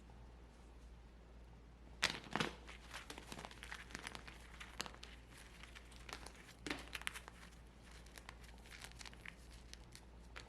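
A brittle, dry block crumbling as it is crushed: a rapid crackle of sharp snaps that starts about two seconds in with a couple of louder cracks, stays dense for several seconds, then thins to scattered snaps near the end.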